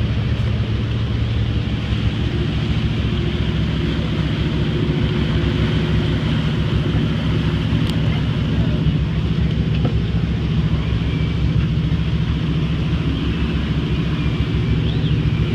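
Chris Craft Commander cruiser's engine running steadily under way, a constant low hum with even pitch.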